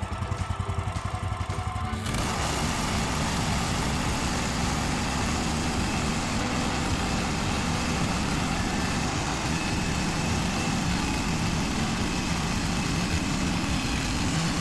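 The engine of a Woodland Mills HM126 portable bandsaw mill running steadily. About two seconds in the sound turns fuller and noisier and then stays even.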